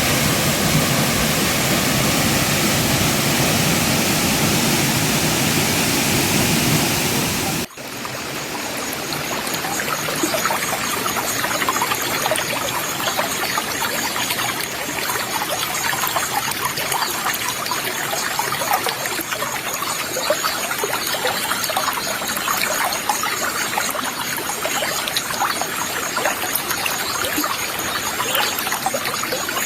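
Rushing water of a river waterfall: a dense, steady rush. About eight seconds in it cuts suddenly to a lighter, splashy trickle and burble of flowing stream water.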